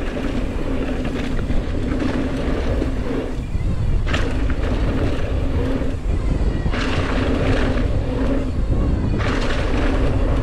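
A mountain bike riding fast down a dirt jump trail: wind rushing over the camera microphone and the tyres rolling on packed dirt, with a steady low hum underneath and a few louder surges of hiss about four, seven and nine seconds in.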